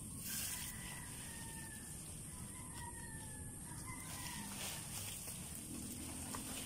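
A rooster crowing faintly, its call drawn out and sliding slightly down in pitch over the first few seconds. Near the start there is a brief rustle of dry banana leaves being handled.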